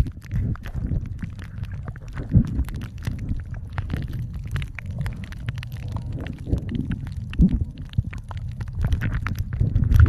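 Muffled underwater sound picked up by a camera in shallow sea water: a steady low rumble of water moving around the camera, with many scattered clicks and crackles throughout.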